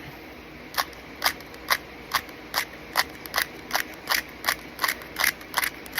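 Rubik's cube layers being turned in quick succession, each turn a sharp click, about two to three clicks a second starting just under a second in.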